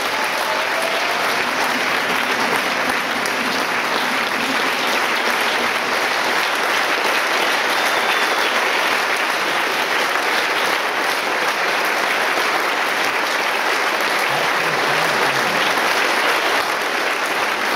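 Audience applauding: steady, sustained clapping from a large crowd in a hall.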